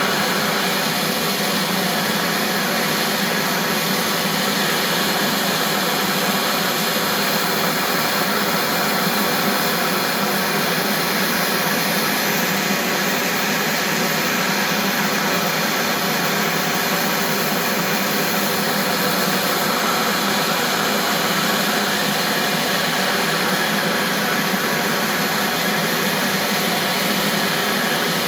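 Steady, unbroken rushing noise of a heating tool held on a seized, rusted bolt to free it for the stud extractor.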